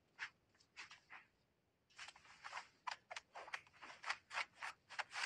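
A hand rubbing a cat's fur briskly: faint, quick scratchy rustling strokes, about four a second, starting about two seconds in.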